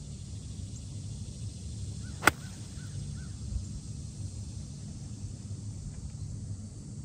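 A 9-iron striking a golf ball: one sharp click about two seconds in, over a steady low outdoor background.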